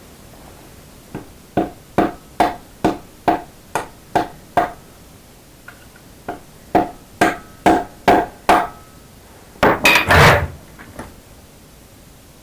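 Hammer striking a makeshift punch to break the tang off a freshly installed helicoil insert: two runs of sharp metal-on-metal taps, about two a second, with a brief metallic ring, then a louder clatter near the end.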